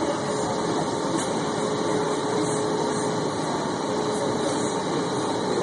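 Steady cabin noise inside a streetcar, an even wash of running sound with a faint constant hum and no breaks.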